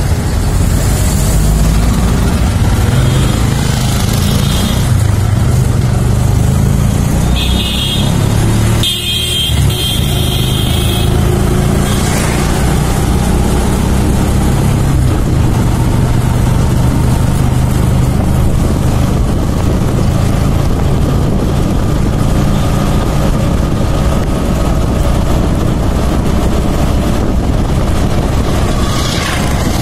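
Steady engine drone and road noise from a moving road vehicle. A horn honks in a few short blasts about eight to eleven seconds in, with a fainter one around four seconds in.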